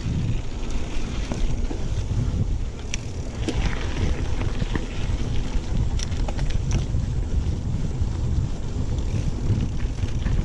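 Wind buffeting the action camera's microphone during a mountain bike ride, with sharp clicks and rattles from the bike over the trail.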